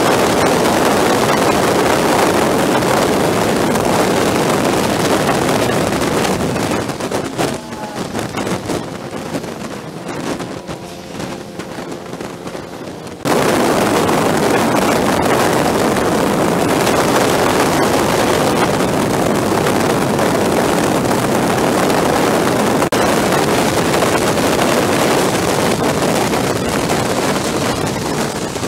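Motorcycle riding at freeway speed: wind rushing over the microphone with engine and road noise. For a stretch in the middle it is quieter and a steady engine hum shows through, then the loud wind rush returns abruptly.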